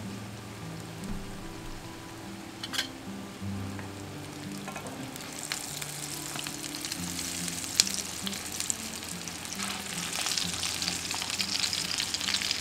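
Breaded vegetable cutlets sizzling in shallow oil in a non-stick frying pan, the sizzle growing louder in the second half as they are turned. There are two light clicks of a utensil against the pan, and soft background music with a slow bass line plays underneath.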